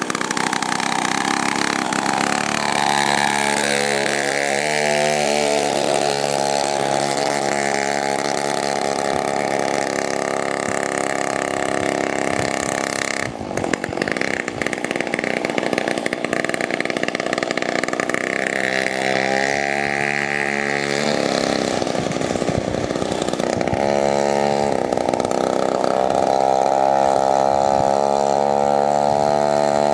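Two-stroke chainsaw engine driving a home-built chopper scooter, running continuously with its pitch rising and falling as the throttle changes. There is a short break about 13 seconds in, and the engine gets louder near the end as the scooter comes closer.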